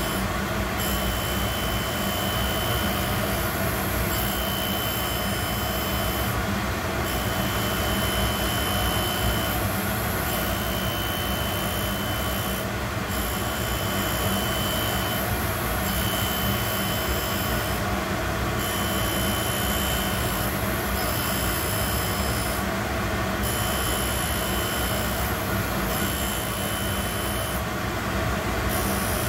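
Boyar Schultz Challenger Deluxe surface grinder running, its wheel taking a light half-thousandth cut on a steel workpiece while the table is hand-cranked back and forth. A steady machine hum throughout, with a high whine that comes and goes every couple of seconds.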